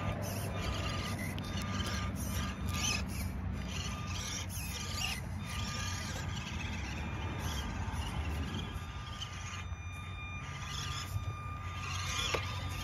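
A small electric RC rock crawler's motor and gears whining steadily as it climbs over granite rocks, with scattered clicks and scrapes of its tires on the stone.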